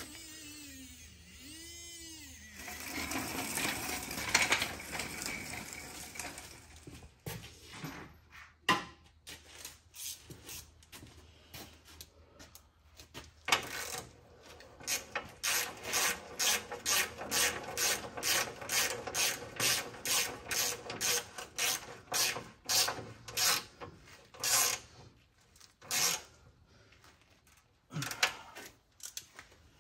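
Hand ratchet wrench clicking in steady strokes, about two a second, as transmission crossmember bolts are run down tight. Before it, metal parts rub and scrape against each other.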